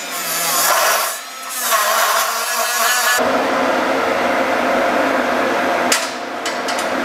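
Small cordless die grinder whining and rasping against steel as it cleans a patch to bare metal for the plasma table's ground clamp, easing off briefly about a second in. Then a steady noise continues, with a few sharp clicks as the spring ground clamp is fastened.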